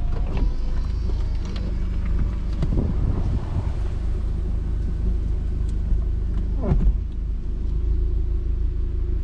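Audi TT's engine running with a steady low rumble, heavy wind noise on the microphone over it.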